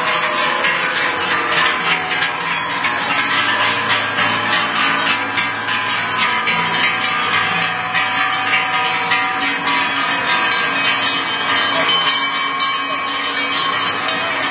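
Many large cowbells on a herd of walking cows ringing unevenly and overlapping in a steady, dense jangle as the cows pass one after another.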